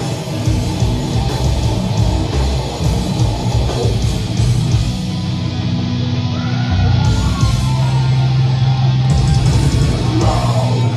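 Heavy metal band playing live: distorted electric guitars, bass and drums at full volume. In the second half the cymbals thin out and the band holds a long low note.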